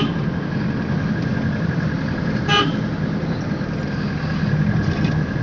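Motor vehicle running steadily with road noise, heard from inside the moving vehicle, with one short horn toot about two and a half seconds in.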